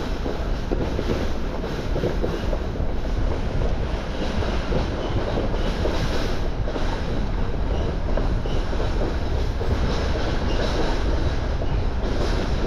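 Pickup truck towing a trailer, driving down the road: steady road and engine noise heard from the moving vehicle.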